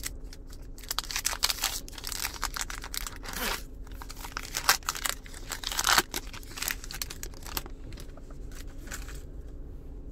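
Foil wrapper of a trading card pack being torn open and crinkled by hand. There is a run of tearing and crinkling noises for about six seconds, then it goes quieter.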